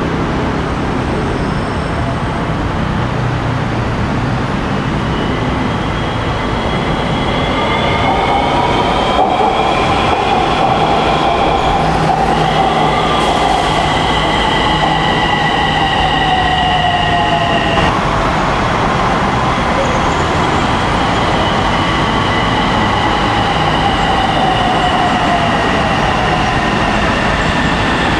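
Bangkok MRT Purple Line electric train, built by J-TREC, pulling into an elevated station: steady running rumble, with its motors whining in several tones that fall slowly in pitch as it brakes, in two long glides, the first ending abruptly about two-thirds of the way through.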